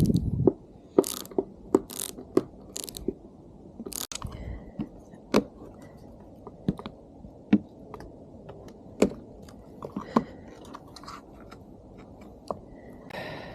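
Irregular clicks and knocks of hand work on a motorcycle's parts, with a short burst of handling noise in the first few seconds.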